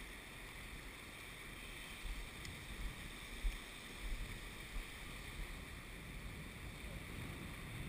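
Small waves washing over a sandy beach, with low wind rumble on the microphone coming and going.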